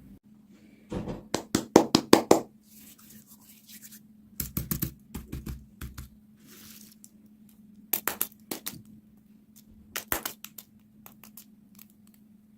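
Plastic packaging being handled and torn open: four bursts of crinkling, crackling and clicking, the loudest about two seconds in.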